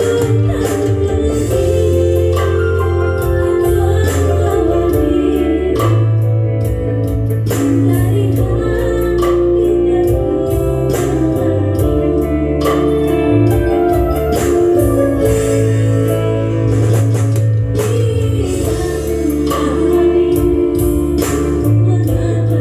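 Amplified music from an electronic arranger keyboard (orgen tunggal), with sustained melody notes over a heavy bass line and a steady drum beat.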